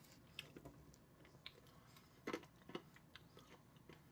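Faint chewing of a soft chewy candy: scattered small mouth clicks, two of them a little louder about two and a half seconds in.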